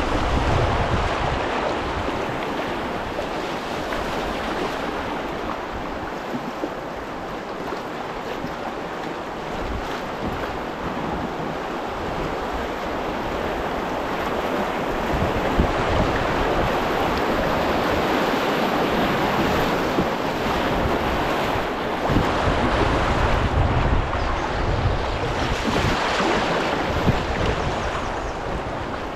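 Shallow river rapids rushing and splashing around an open canoe as it runs through a rocky riffle, with gusts of wind buffeting the microphone.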